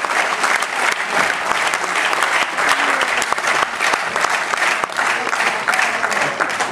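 Audience applauding: dense, steady clapping that thins slightly near the end.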